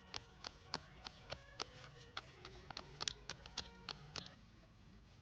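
Irregular small clicks and taps, about two or three a second, from hands handling and dismantling a plastic recoil pull-start housing; they stop about four seconds in.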